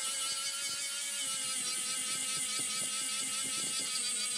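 Angle grinder running with a steady whine as its flap disc grinds rust off a flat steel blade.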